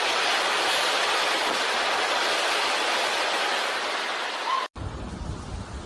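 Hurricane-force wind and rain making a steady, loud rushing noise. It cuts off suddenly about three-quarters of the way in, and a gustier recording follows, with wind buffeting the microphone in low rumbles.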